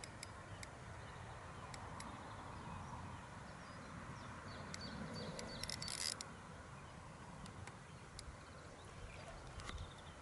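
Quiet pond-side outdoor background with scattered short faint ticks, and a brief hiss about six seconds in.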